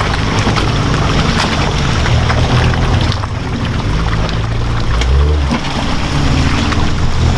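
Off-road truck engine running under load, its pitch shifting a few times, with water splashing and pouring around the vehicle as it drives through deep water.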